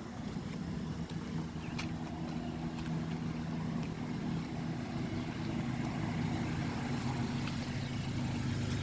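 Outdoor air conditioner condensing units running, giving a steady low hum of compressors and fans.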